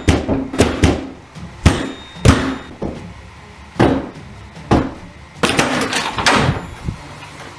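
Attic door pounded hard from the other side, a string of heavy irregular bangs with a quick flurry of blows about five and a half seconds in.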